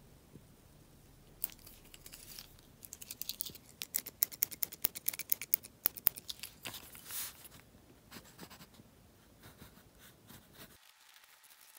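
Quick run of sharp clicks and scratches from a mechanical pencil being handled over sketchbook paper, loudest for a few seconds in the middle. Fainter pencil strokes on the paper follow near the end.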